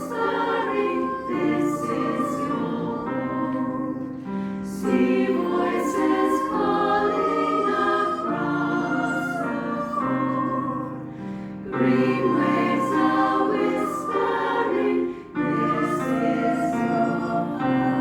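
Folk song sung by several voices in choir-like harmony, the chords moving in steps over held low notes.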